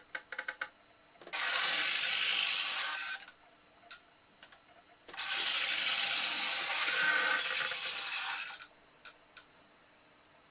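Small electric point motor running twice, each time for about two seconds with a whirring gear noise, throwing the blades of a model railway slip switch. Light clicks come before the first run, between the runs and after the second.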